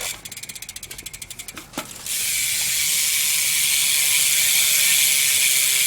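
A BMX rear hub's freewheel ratchet clicking rapidly, about sixteen clicks a second, as the wheel spins. A knock comes just under two seconds in, then a loud steady high hiss takes over.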